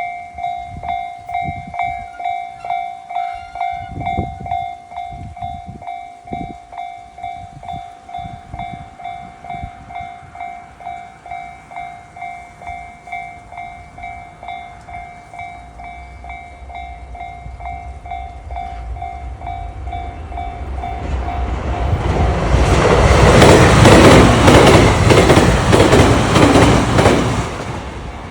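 A Japanese level-crossing warning bell rings steadily with a clang about twice a second. In the last third, a JR Kyushu 885 series electric train approaches and passes loudly, its wheels clacking over the rail joints and covering the bell, then it fades away near the end.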